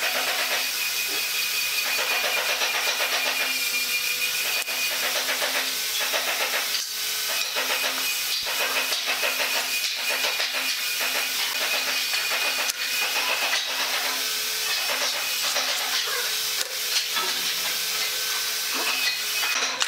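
A steady hiss with faint humming tones beneath it and a few light ticks and taps.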